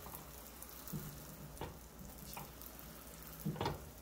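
Hotteok frying in oil in a pan, a faint sizzle, with a few light knocks as they are pressed flat; the loudest knock comes near the end.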